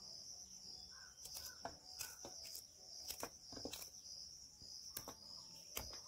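Knife cutting peeled snake gourd into pieces: about ten sharp, irregular taps, over steady cricket chirping.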